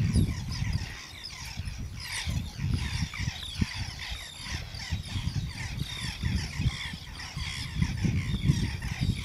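Many birds chirping and calling in a busy, overlapping chorus of short high notes, over an uneven low rumble.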